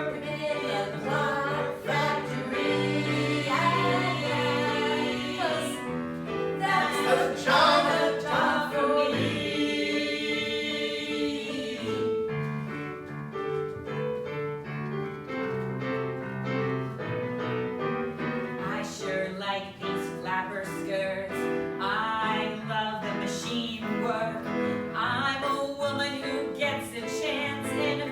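A stage song: voices singing together over piano accompaniment.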